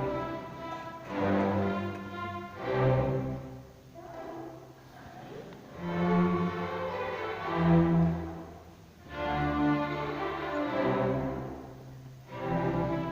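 Orchestra playing, led by bowed strings with cellos and basses underneath: sustained chords that swell and fade in phrases of a couple of seconds each.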